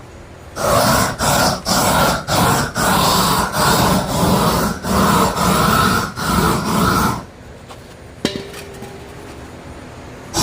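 Handheld gas torch burning, an irregular pulsing rush of noise that runs for about six and a half seconds and then cuts off; a single click follows about a second later.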